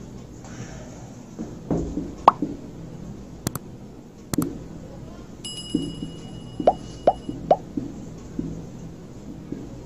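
Marker pen writing on a whiteboard, with a few short rising squeaks of the tip on the board. Around the middle come two sharp clicks and a short bell-like chime from a subscribe-button animation.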